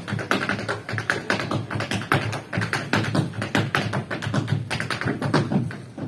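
Tap dancer's shoes striking a hard surface in fast, dense runs of taps, over recorded music.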